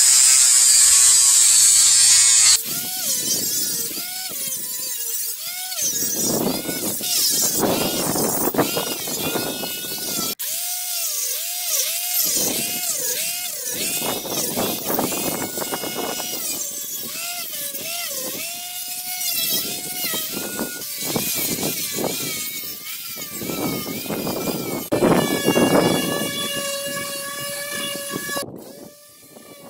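Electric disc sander with a coarse round sanding disc grinding weathered, blackened wood off a hanok's pillars and rafters. A very loud rasping hiss for the first two seconds or so, then the motor's whine repeatedly dips and recovers in pitch as the disc is pressed into the wood and eased off, over the scratch of the abrasive. Near the end it runs at a steady pitch, then sounds suddenly farther off.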